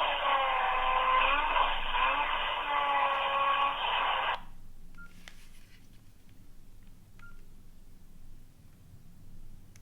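Nokia N80 phone playing a phone-quality sound of several gliding, bending tones through its speaker; it stops abruptly about four and a half seconds in. Then come two faint clicks, each with a short beep, a couple of seconds apart.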